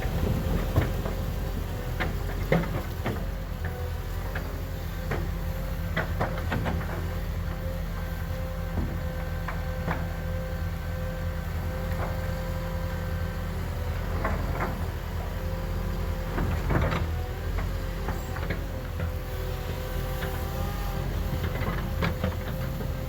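Heavy earth-moving machine running steadily under load, with a constant whine over the engine and scattered metallic clanks and knocks.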